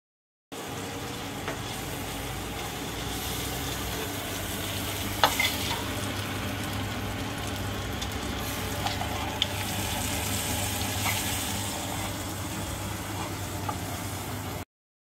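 Freshwater mussel (Anodonta) meat sizzling steadily as it fries in oil in a frying pan, stirred with a metal spoon that clinks against the pan a few times, loudest about five seconds in.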